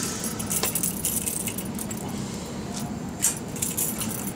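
The light steel safety chain of a PTO shaft guard jangling and clinking as it is handled and clipped to an anchor point. Sharper clinks come about half a second in and again just after three seconds, over a steady low hum.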